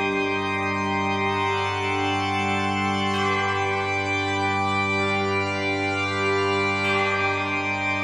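Background music of held organ chords, the chord changing twice.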